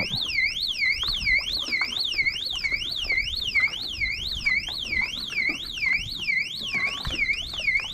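Electronic alarm rigged on a boat dock, sounding a continuous warbling siren tone that sweeps up and down about three times a second.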